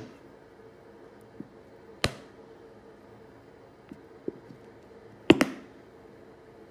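Kitchen utensils knocking against a mixing bowl or jar: one sharp knock about two seconds in and a quick double knock about five seconds in, with a few faint ticks between.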